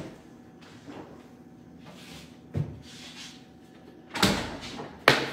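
Faint knocks of kitchen handling, then about four seconds in a loud thud and rattle as a metal sheet pan is set down on the counter, with a sharp knock a second later.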